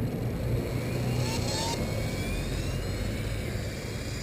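Align T-Rex 450 Pro electric RC helicopter spooling up: the brushless motor's whine rises in pitch as the rotor comes up to speed, then levels off high.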